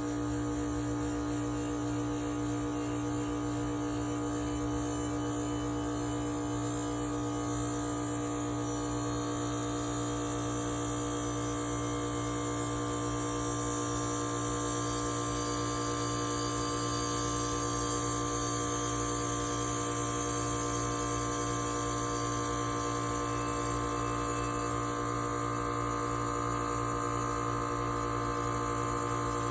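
Air-conditioning compressor and condenser fan running with a steady hum of several held tones. It does not stop or restart here.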